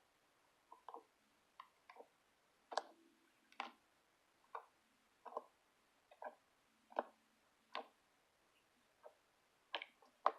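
Faint, short squishes and clicks, about one or two a second at an uneven pace, as slime is poked and cut with a sword.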